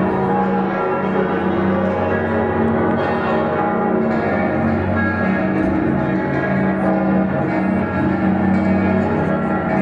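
Many church bells ringing at once across a city, a dense, continuous wash of overlapping bell tones with no pause.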